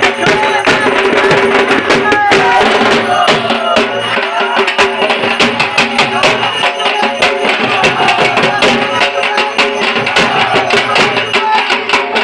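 Dhak drums beaten with sticks in a fast, dense rhythm, over a steady held tone.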